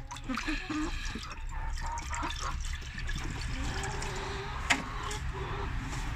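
Water poured from a plastic milk jug splashing into an old metal frying pan as it fills, with one sharp knock about three quarters of the way through.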